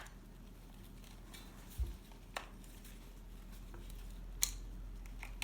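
A few light, separate clicks and one soft low thump: hands handling a plastic animatronic Santa figure and its battery compartment.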